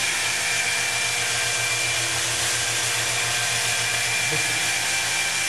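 FLEX water-fed polisher with a diamond pad running steadily against a vertical stone surface, grinding it flat: an even motor whine with one thin high tone, over the hiss of the pad on the wet stone.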